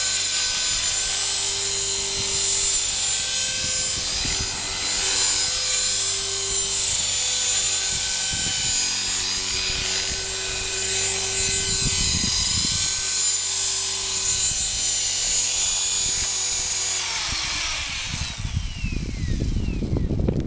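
T-Rex 450 Pro electric RC helicopter in a low hover: the steady high whine of its brushless motor and gears with the rotor's buzz. About three seconds before the end the whine falls in pitch and dies away as the helicopter sets down on the road and the motor spools down.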